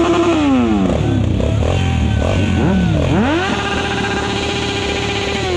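Motorcycle engine revved hard twice. The revs are held high, drop back about half a second in, then climb again about three seconds in, are held for about two seconds, and fall away near the end.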